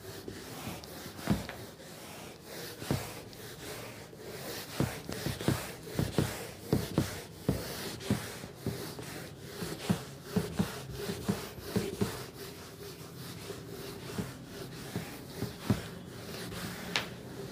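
Whiteboard duster scrubbing marker off a whiteboard in quick, irregular back-and-forth strokes, with small knocks of the duster against the board. The strokes come thickest in the middle.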